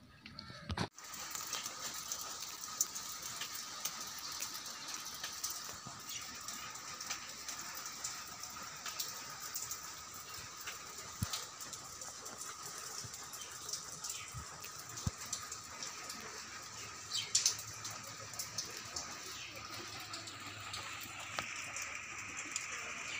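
A short knock about a second in, then steady rain pattering on surfaces, with scattered drops ticking.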